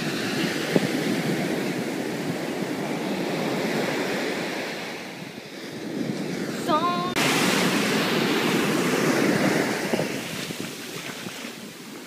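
Ocean surf washing in over the sand, a steady rushing that swells and ebbs, with wind on the microphone. A short high call or voice comes about seven seconds in.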